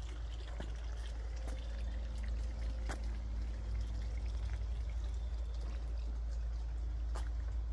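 Water trickling and pouring steadily, with scattered small drips and a steady low rumble underneath.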